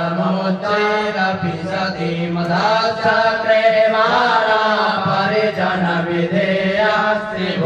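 Sanskrit mantras of a Rudrabhishek to Shiva being chanted in a sustained, melodic recitation.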